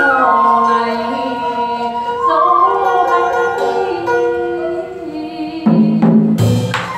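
Traditional Vietnamese water-puppet theatre music: a sliding, sustained melodic line on strings, winds or voice, then drum strokes and a sharp percussion hit come in near the end.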